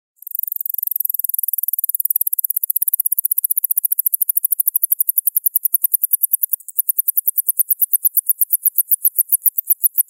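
Alston's singing mouse (Scotinomys teguina) singing one long, very high-pitched trill of rapidly repeated notes. The notes gradually space out, with a short break about two-thirds of the way through before the trill carries on.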